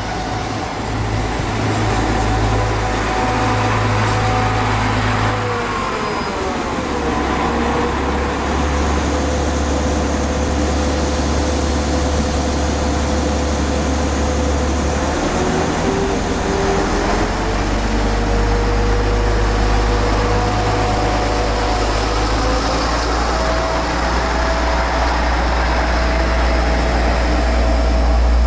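SNCF TER diesel railcar pulling away from a station, its engine running steadily under load with a deep hum. The engine note drops about six seconds in and climbs again around sixteen seconds in as the train gathers speed.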